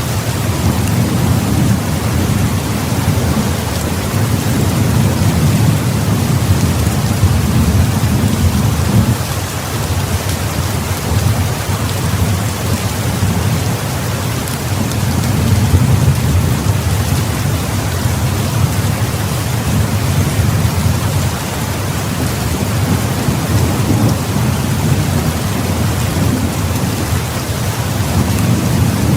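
Heavy rain falling steadily, with a low rumble of thunder swelling and easing underneath.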